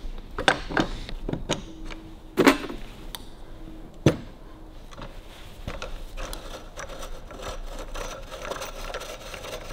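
Metal clicks and knocks from a Harley-Davidson WLA seat post tube and its springs being handled, a handful of sharp ones in the first four seconds, loudest about two and a half seconds in, then only faint scattered clicks.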